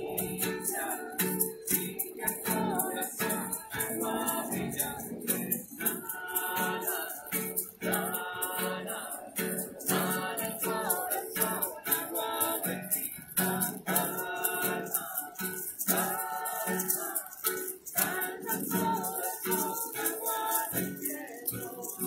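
Several voices singing together over a strummed acoustic guitar, with hand shakers rattling a steady rhythm.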